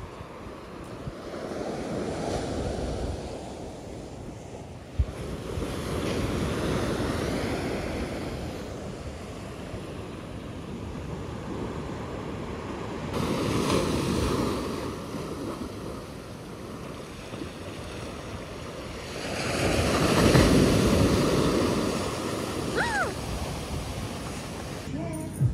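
Small waves breaking and washing up a sand beach, swelling and fading in several surges with the biggest late on. Wind is on the microphone.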